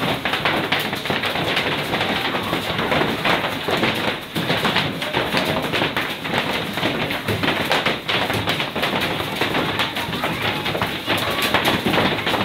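Heavy hailstorm: a dense, unbroken clatter of countless hailstones pelting down on the ground and trees.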